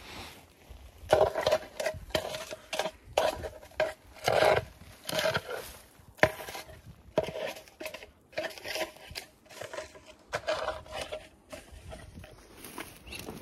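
Footsteps and spruce branches brushing and scraping against clothing as someone pushes through dense brush, in irregular rustling bursts with one sharp crack about six seconds in.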